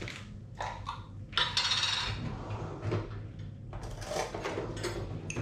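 A jar's screw lid twisted off, a scraping rasp about a second and a half in, with light clicks and clatters of the jar and lid being handled on the worktop.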